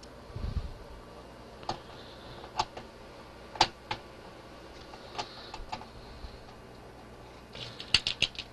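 Scattered small clicks and taps of screws being started into a computer chassis to hold the motherboard, not yet tightened. A dull low bump comes about half a second in, and a quick cluster of clicks near the end.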